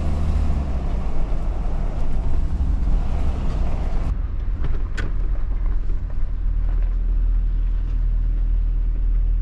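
Nissan Patrol 4WD driving, a steady deep rumble of engine and road noise heard from inside the vehicle. The higher hiss of the road drops away suddenly about four seconds in, leaving mostly the low rumble, with a single sharp tick about a second later.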